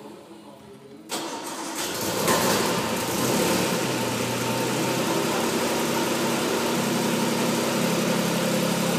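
1956 Aston Martin DB2/4's twin-cam straight-six being started: about a second in the starter turns it over, it catches a second or so later, and then it settles into a steady idle.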